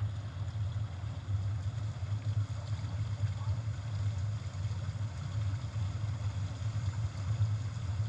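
Steady, muffled low rumble of bubbling, churning pool water, heard through a GoPro's sealed waterproof housing at the water's surface.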